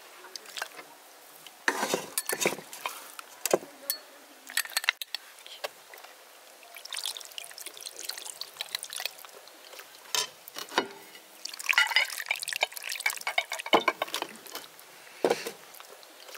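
Chicken broth poured from an enamel pot into a ceramic serving bowl, splashing in two stretches. Between them come a few knocks and clinks as chicken pieces are served with a wooden spoon against the pot and bowls.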